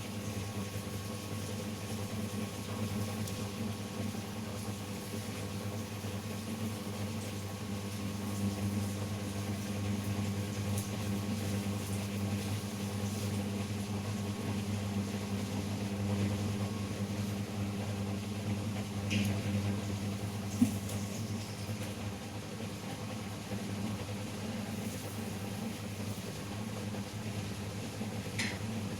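Steady electrical hum of a small machine running, with a few faint light ticks near the end.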